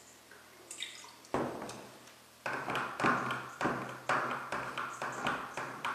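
Paint-filled cylinder of a fabric paint applicator being turned in its slots through the thinned paint: a wet, rough rubbing in strokes of about two a second, with a first stroke about a second in.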